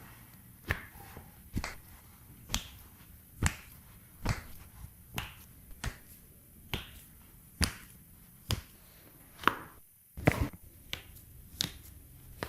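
A steady series of sharp snaps, roughly one a second, with two coming close together about ten seconds in.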